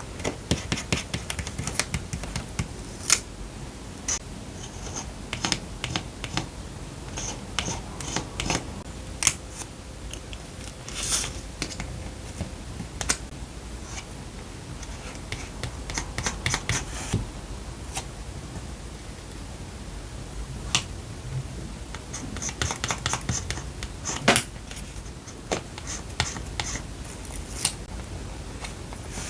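Scissors snipping paper in short runs of quick clicks, with paper being handled and tapped down between the cuts.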